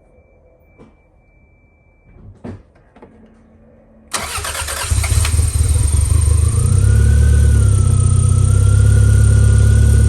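A few faint clicks, then about four seconds in the Toyota MR2's four-cylinder engine cranks briefly on the starter, catches, and settles into a steady idle with a whine that rises slightly and then holds. This is the first start after a tune-up with new spark plugs, plug wires, distributor cap and rotor.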